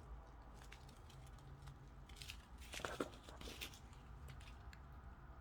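Faint handling noises: small plastic bags of diamond-painting drills rustling and clicking as they are picked up and sorted, a little louder about three seconds in.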